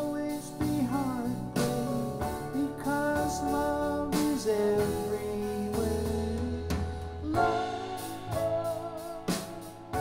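A song with singing and instrumental accompaniment played through Harbeth SHL5+ loudspeakers and picked up by a microphone in the room.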